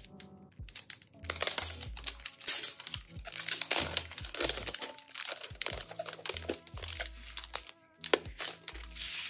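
Clear plastic wrapper crinkling and crackling in irregular bursts as it is handled and pulled off a paper folder, with background music underneath.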